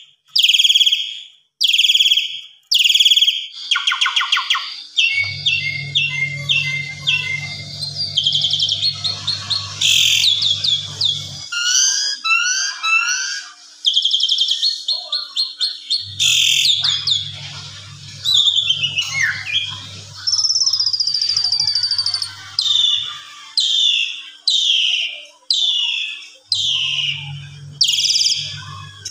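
Asian pied starling (jalak suren) singing loudly: a quick series of falling whistled notes, then a long varied song of rattles, trills and chattering phrases, and the falling whistles again near the end.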